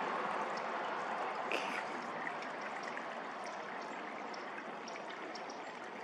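Steady rush of flowing water, easing slightly over the few seconds, with a few faint high ticks above it.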